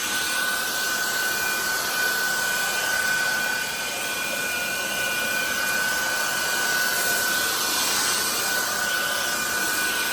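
Cordless stick vacuum cleaner running steadily on max suction: a rush of air with a steady high-pitched motor whine over it.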